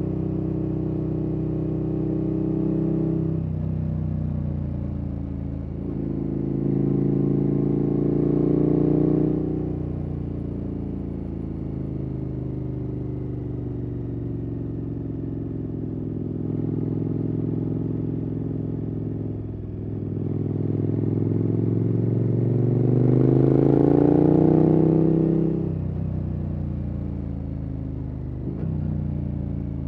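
KTM 1290 Super Adventure S's V-twin engine through a Wings aftermarket exhaust, under way on the road: the revs climb in two long pulls, about six and about twenty seconds in, each falling away afterwards, with steady running between.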